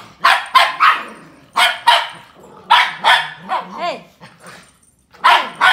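Small dogs barking at each other as they squabble: short, sharp, high-pitched barks, mostly in quick pairs, with a few sliding yelps about halfway through.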